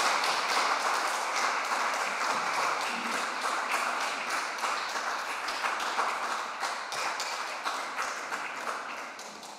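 Audience applauding: many hands clapping densely, then thinning and dying away near the end.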